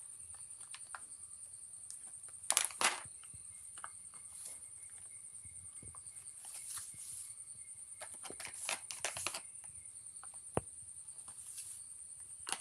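A plastic cat-food packet crinkling and tapping in short scattered bursts, twice early on and in a cluster later, as kittens paw and bite at it. A steady high insect trill runs under it.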